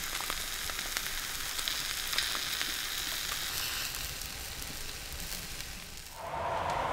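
Back bacon and eggs sizzling in a frying pan, a steady hiss with small pops. About six seconds in it gives way to a different, lower steady hiss.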